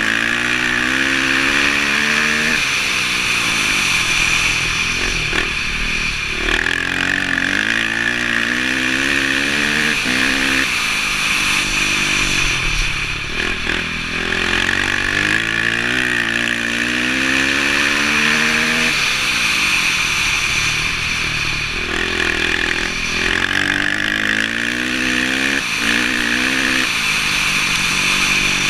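Dirt bike engine heard from on board, revving up in rising sweeps and dropping back again and again as the bike accelerates and shifts, over a steady hiss.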